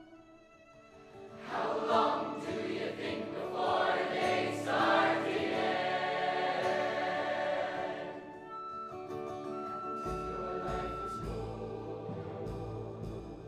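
High-school show choir singing. It starts soft, then the full choir swells in loudly about a second and a half in. After about eight seconds it eases into a softer passage with one high note held for a few seconds, and low notes come in underneath.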